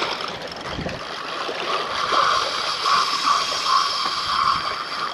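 Spinning reel's drag buzzing in uneven pulses as a hooked crevalle jack pulls line off, starting about two seconds in, over wind and lapping-water noise.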